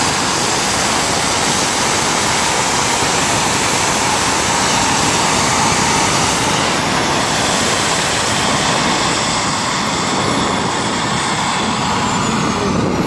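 The small gas-turbine engine of a radio-controlled model jet, rated at about 26 kg of thrust, runs at high power in a static ground run, making a loud, steady rush of noise. Near the end a high whine begins to fall in pitch.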